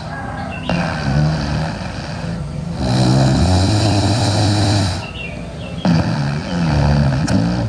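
A sleeping girl snoring loudly: three long snores with short breaks between them.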